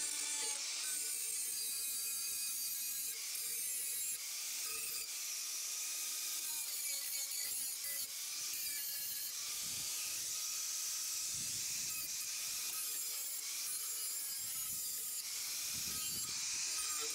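Handheld electric angle grinder grinding the steel front edge of a finish-mower deck, its motor whine wavering as the disc bears on the metal. There are a few brief dips where it eases off.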